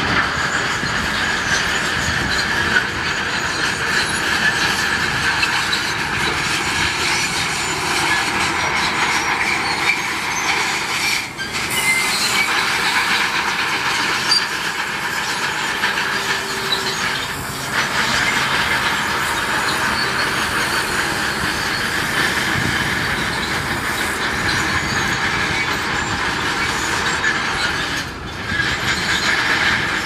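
Shantui crawler bulldozer working, its steel tracks squealing and clanking continuously over the running engine. There are brief drops in loudness about a third of the way in and near the end.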